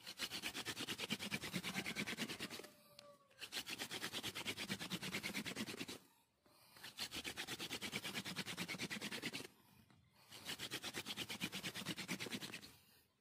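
Hand-drill friction fire: a wooden spindle spun back and forth between the palms grinds into a wooden plank with fast, even scraping strokes. It comes in four runs, with a short pause between runs as the hands go back to the top of the spindle.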